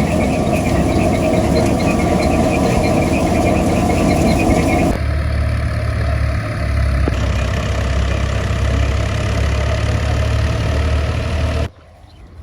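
Engine-driven machinery running steadily with a heavy low hum. The sound changes abruptly about five seconds in and drops off sharply near the end.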